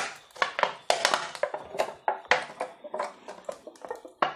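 Aluminium foil crinkling and crackling in an irregular run as hands fold and press it tight around the rim of a pudding dish.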